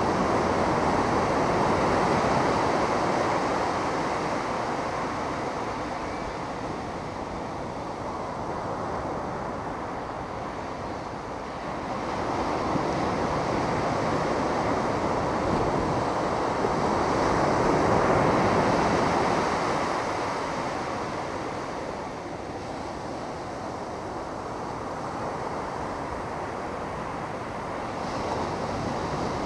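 Ocean surf breaking on a beach: a continuous wash of waves that swells and eases over several seconds at a time, loudest about two-thirds of the way through.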